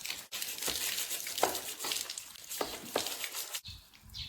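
Running water hissing as a baby stroller is washed, cutting off suddenly about three and a half seconds in.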